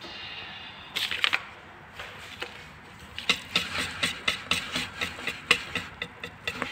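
Wire whisk beating pancake batter in a bowl, its wires clicking against the bowl about three times a second. A few knocks come about a second in, and the steady beating starts about three seconds in.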